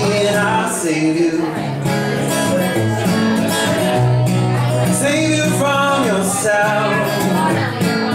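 Live acoustic guitar strummed in steady chords with a man singing over it, his voice sliding up and down in long held notes.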